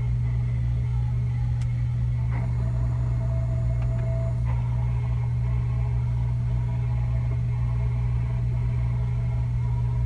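A steady, loud low hum with no break, with a faint higher whine coming and going for a couple of seconds and a few faint ticks.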